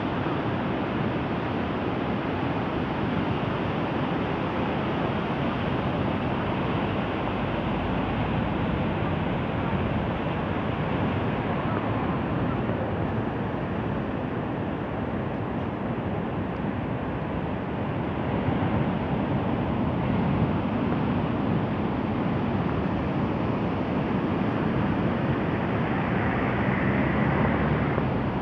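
Rough, heavy sea: waves breaking with a continuous surf rumble that swells a little louder in the second half.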